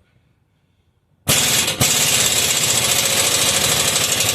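Impact wrench hammering a nut down onto an exhaust clamp, starting about a second in and running steadily with a fast rattle.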